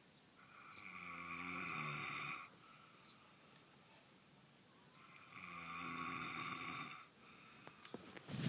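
A person snoring in deep sleep: two long snores about four seconds apart, with a few faint clicks near the end.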